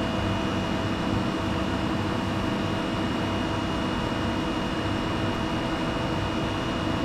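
Steady mechanical hum of lab machinery and air handling, with a few faint steady tones running through it and no change in level.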